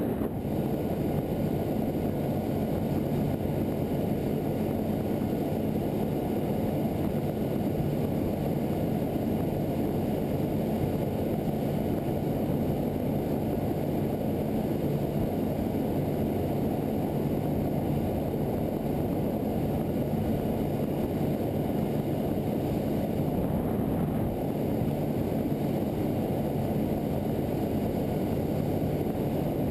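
Motorboat underway: a steady engine drone with a low rush of wind and water.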